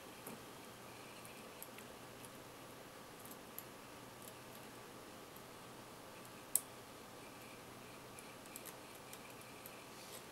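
Faint, scattered small metallic clicks of a lock pick working the dimple pins of a Millenco Magnum lock cylinder. One sharper click comes about six and a half seconds in.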